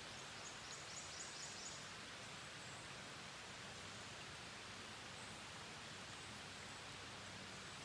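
Rain falling on a river's surface and the streamside trees: a steady, faint hiss. A short run of faint high ticks sounds in the first couple of seconds.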